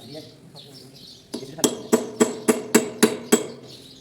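Hammer blows on a metal part, a regular series of sharp ringing strikes about three or four a second, starting about a second and a half in.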